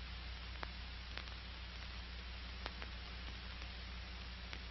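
Steady hiss and low hum of an old optical film soundtrack, with a few faint scattered clicks; no distinct action sound.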